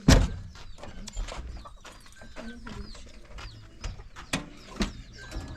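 A series of sharp knocks and thumps: one loud knock right at the start, then several lighter ones at uneven intervals.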